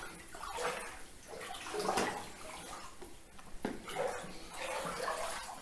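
Footsteps sloshing through shallow water on a tunnel floor, with irregular splashes about once a second.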